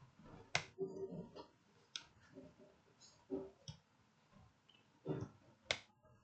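Plastic back cover of an Itel S18 phone being pried open, its clips snapping loose in a series of sharp clicks. The loudest come about half a second in and near the end.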